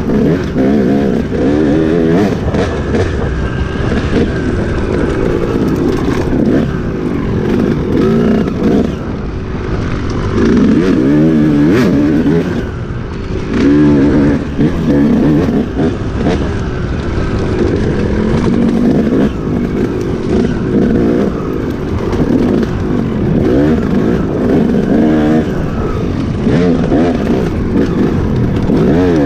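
Enduro motorcycle engine under riding load, its revs rising and falling again and again as the throttle is worked.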